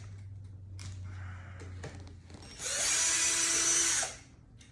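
Power drill backing out a screw in one run of about a second and a half, a little past the middle, with a few light clicks of handling before it.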